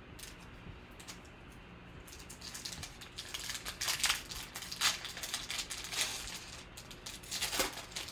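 Foil trading-card pack wrapper crinkling and tearing open by hand, starting about two seconds in, with sharper rips around four, five and seven and a half seconds in.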